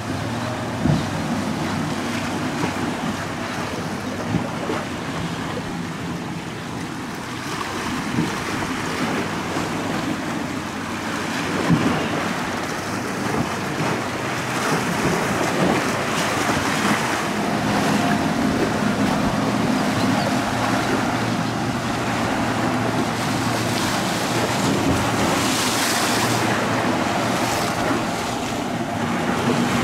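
Outboard-powered patrol boats running at speed through choppy water: a steady engine drone under splashing spray and wind on the microphone, with a few sudden thumps.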